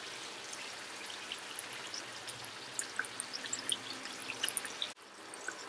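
Puri deep-frying in medium-hot oil: a steady sizzle with many small crackling pops. The sound drops out briefly about five seconds in.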